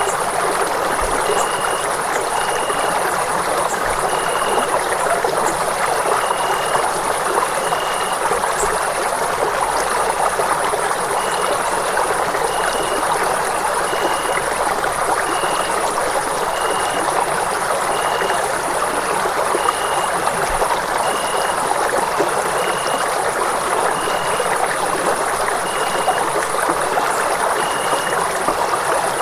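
Running water flowing steadily in an even rush, with a faint high chirp repeating about once a second.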